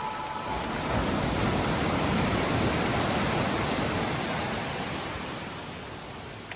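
Ocean surf washing in around pier pilings: a steady rush of water that swells about a second in and slowly fades toward the end.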